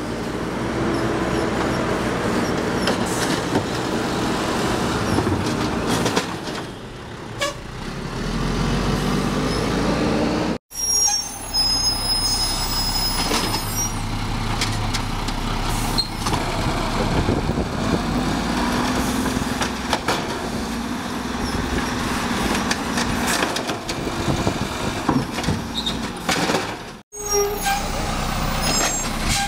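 Mack LE refuse truck running, with the Amrep automated side-loader arm working its hydraulics as it lifts and empties curbside carts and the truck creeps along to the next ones. The sound cuts out briefly twice.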